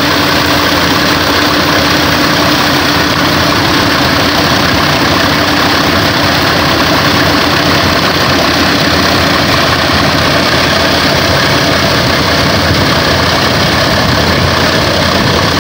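Combine harvester running under load, its diesel engine and threshing machinery making a loud, steady mechanical din while its auger unloads threshed wheat into a tractor trolley.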